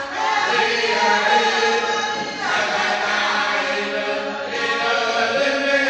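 Church congregation singing a hymn together in the Cook Islands Christian Church style, many voices in long held chords that change about halfway through and again near the end.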